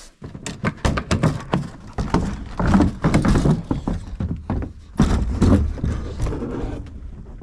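Helicopter engine cowling panel being worked loose and pulled off by hand: a long run of irregular knocks, clunks and rattles, starting suddenly and easing off near the end.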